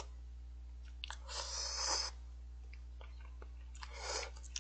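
A person slurping instant cup-ramen noodles from a bowl: two long slurps, about a second in and again near the end, with small mouth clicks between.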